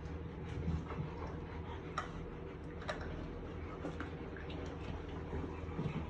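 A litter of puppies eating dry kibble from a metal bowl: irregular crunching and sharp clicks of kibble and teeth against the bowl, over a steady low hum.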